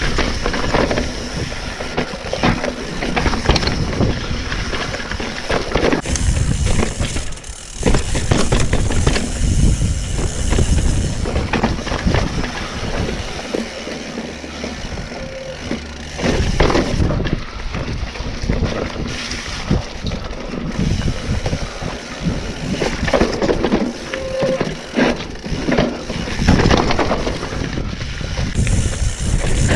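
Mountain bike riding down a dirt and rock trail: tyres crunching over dirt, rock and leaf litter, with frequent knocks and rattles from the bike over bumps, and wind rushing on the microphone. The riding noise eases off for a few seconds in the middle.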